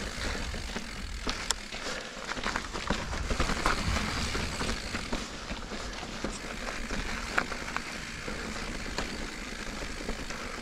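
Giant Reign full-suspension mountain bike being ridden at speed along flowing singletrack: steady tyre noise on the dirt and rock, with frequent sharp rattles and clicks from the bike over bumps and a low rumble throughout.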